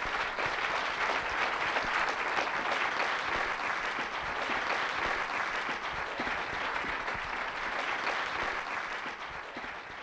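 Audience applauding: a dense, steady clatter of many hands clapping that starts to die away near the end.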